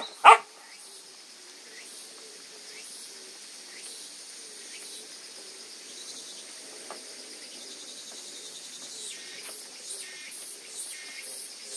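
A puppy barks twice in quick succession at the very start, short high yaps. Then only a faint steady high hiss remains, with a few soft clicks while the puppies eat.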